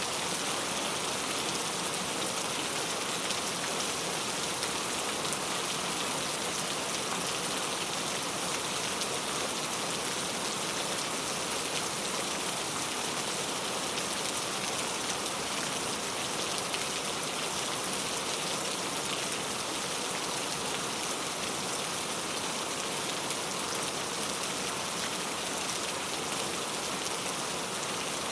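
Heavy rain falling steadily: an even, unbroken hiss of many fine drops pattering, with no change in strength.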